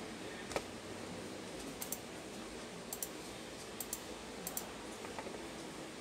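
Computer mouse clicking: one click about half a second in, then four quick double clicks roughly a second apart.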